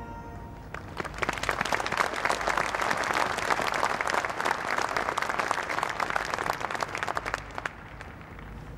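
A large audience applauding: dense clapping that starts about half a second in and dies away near the end.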